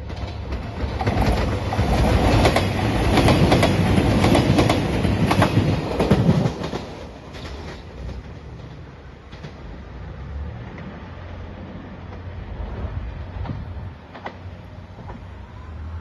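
JR Shikoku 2700 series three-car diesel limited express train passing close by: engine running and wheels clattering over the rail joints, loudest for about five seconds. About six and a half seconds in it drops away to a fading rumble as the train pulls away.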